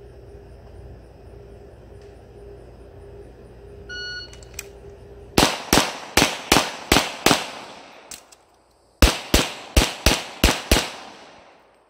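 A shot timer beeps to start the run. A handgun then fires two quick strings of six shots each, with a pause of under two seconds between them for a standing magazine change. Each shot echoes briefly.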